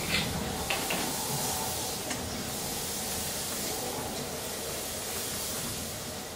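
Stage fog machine hissing steadily as it pumps out fog, with a few small clicks in the first second.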